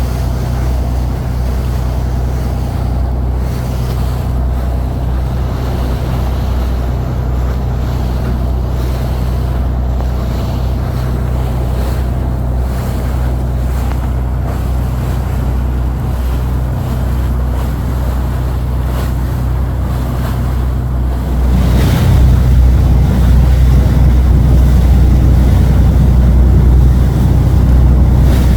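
Fishing boat's engine running steadily at sea, a low drone with wind buffeting the microphone; it gets louder about three quarters of the way through.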